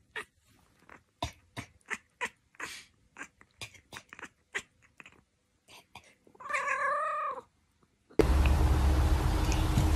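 A domestic cat gives one drawn-out, wavering meow lasting about a second, after a run of faint, irregular clicks. Near the end, loud steady hiss with a low hum cuts in suddenly.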